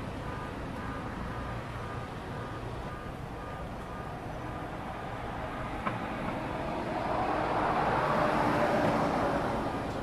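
Steady road traffic. A vehicle passes close by, swelling up from about seven seconds in and fading near the end, with a single sharp click a little before.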